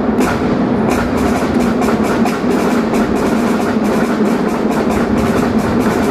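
Live marinera norteña music from a band amplified through an arena sound system, with a steady percussive beat of about four to five strokes a second over sustained tones.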